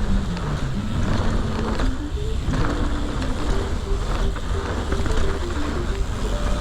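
Background music with a stepping melody over steady riding noise from a mountain bike on the trail: wind and tyre rumble.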